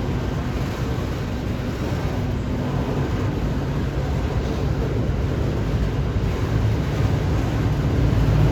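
Freight train rolling past: a steady low rumble of wagon wheels on the rails, with some wind on the microphone.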